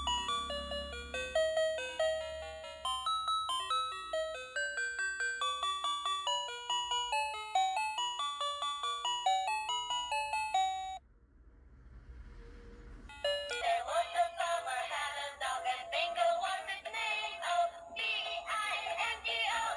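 Battery-operated toy's electronic sound chip playing a melody of single beeping notes, which stops about 11 seconds in. After a short lull a busier electronic tune with wavering tones starts up.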